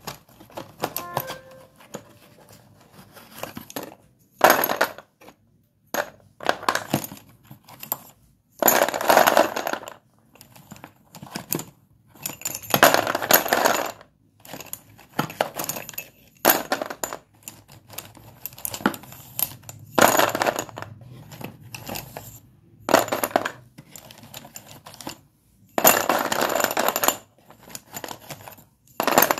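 Sticks of white dustless chalk being broken and crumbled, a series of dry crunchy cracking bursts, one every second or two.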